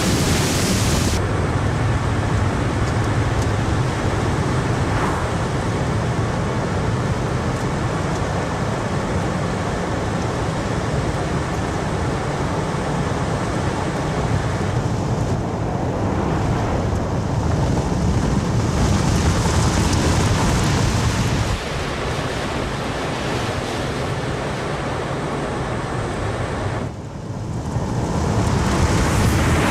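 Steady rushing wind and tyre noise from a moving vehicle, with no clear engine tone; the hiss drops back and swells again a few times.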